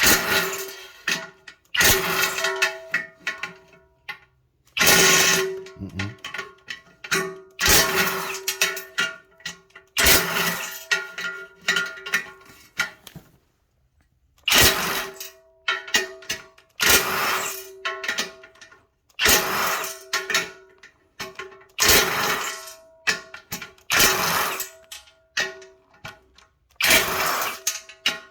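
Power impact wrench running in about a dozen short bursts of a second or two each, a few seconds apart, breaking loose the studs and bolts that hold a three-piece forged wheel's face to its barrels.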